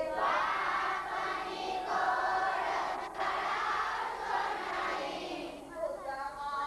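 A large group of children and young women singing a devotional song together, many voices blended. The singing thins to fewer, clearer voices near the end.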